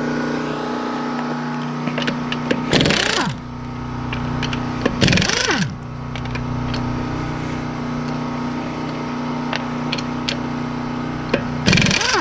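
Impact wrench fired in three short bursts on the wheel's lug nuts, each burst followed by the motor winding down in pitch, over a steady machine hum.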